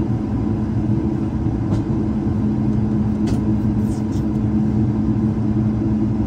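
Steady cabin noise of an Airbus A220-300 on the ground at low thrust: an even rumble from its Pratt & Whitney PW1500G geared turbofans with a constant hum, heard from inside the cabin beside the wing.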